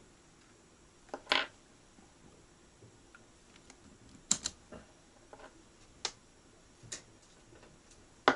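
Scattered sharp clicks and light knocks a second or more apart, with a close pair about a second in and another about four seconds in, over a quiet background.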